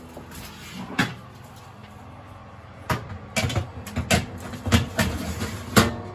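A metal baking tray knocking and clattering against the oven door and rails as it is slid into an oven: one clunk about a second in, then a run of sharp clatters from about three seconds on.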